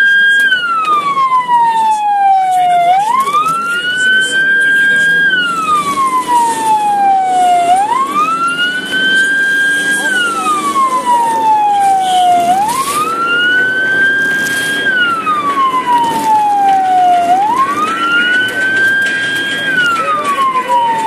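Ambulance siren on a slow wail, each cycle rising quickly, holding briefly, then falling slowly, about once every five seconds, heard from inside the vehicle.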